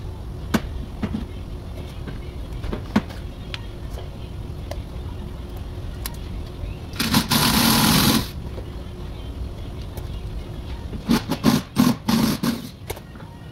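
Sharp clicks and knocks of a plastic wheel-arch moulding and its clips being worked loose by hand and tool, over a steady low shop rumble. About seven seconds in comes a loud rush of noise lasting about a second, and near the end a few short loud bursts.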